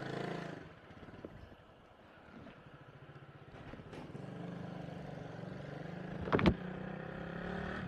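Motorcycle engine running as the bike pulls away and rides on. It drops quiet about a second in, then picks up again and holds steady. A short, loud double blip comes about six and a half seconds in.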